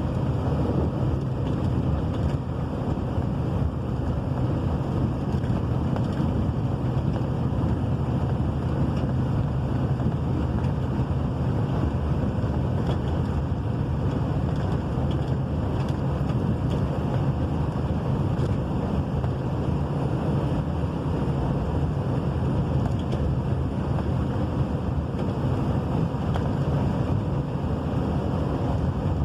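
Rain falling steadily, a constant noise with a strong low rumble.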